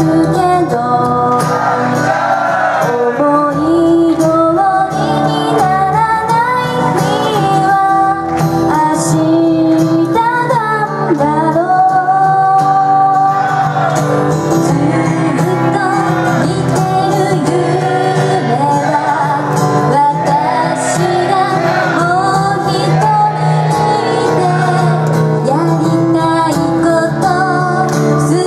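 A young woman singing a slow pop song live into a handheld microphone, accompanied by a strummed acoustic guitar.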